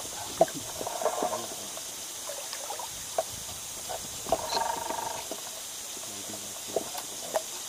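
Small waves lapping against an inflatable float tube, with a few short sharp ticks and splashes.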